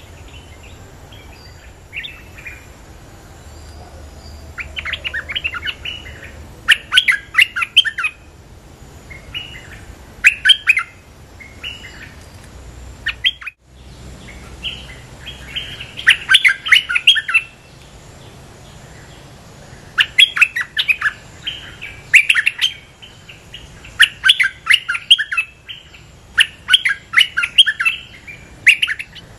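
A bulbul singing in repeated bursts of rapid, chattering notes, each phrase lasting one to three seconds with short pauses between.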